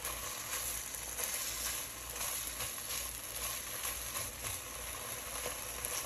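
Turkey cold-cut slices sizzling in a little oil in a nonstick frying pan, a steady crackling hiss. Faint clicks and scrapes come from a metal spoon pressing and moving the slices in the pan.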